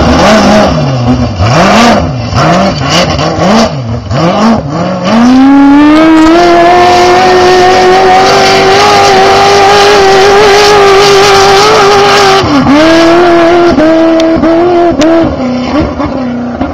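Class 1 off-road race car's engine revving up and down sharply, then climbing to a high steady pitch held for several seconds under hard acceleration. The revs dip briefly several times near the end.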